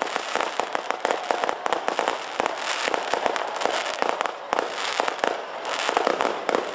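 Fireworks display: aerial shells bursting in quick succession over a dense crackle of many small pops.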